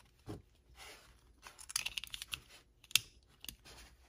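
Light clicks and rustling from a Workpro utility knife being handled, with one sharp click about three seconds in.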